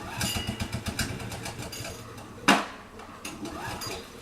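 Small snowmobile engine sputtering with a fast rattle of clicks, then a sharp loud knock about two and a half seconds in as its low hum stops: the engine stalls and won't keep running.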